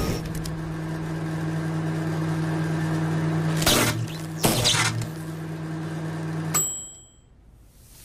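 A steady low hum with two short whooshes, about three and a half and four and a half seconds in. The hum cuts off abruptly after about six and a half seconds, followed by brief high ringing tones.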